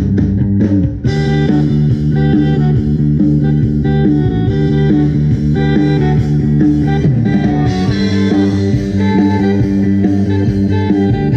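Live pop band playing amplified music. A drum lead-in gives way to the full band about a second in, with drum kit, bass and sustained keyboard and guitar notes.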